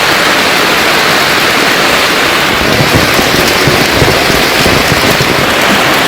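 Heavy monsoon rain pouring down, a loud, dense and steady hiss.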